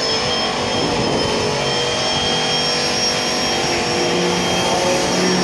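Turbocharged Ford three-valve V8 of a drift car held at full throttle in a burnout, the rear tyres spinning and smoking on the pavement; a steady, unbroken noise at a constant level.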